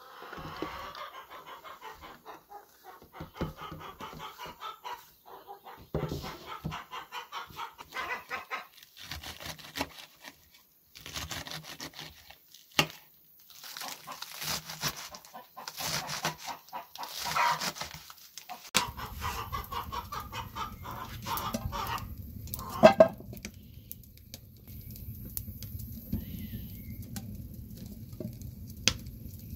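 Hens clucking, with a knife chopping green onions on a wooden cutting board. About two-thirds of the way through, a steady low rumble sets in, and a loud squawk comes soon after.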